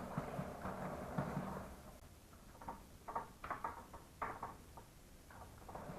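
Faint rubbing for about two seconds, then scattered light clicks and taps, as a diesel-cleaned motorcycle drive chain is wiped down by hand.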